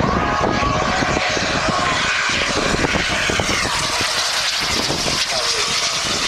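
Model aircraft engine droning steadily at a fairly constant pitch.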